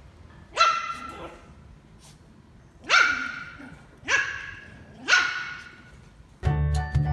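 Red toy poodle puppy barking: four short, high-pitched barks, each rising sharply in pitch at its start, spaced one to two seconds apart. Music starts near the end.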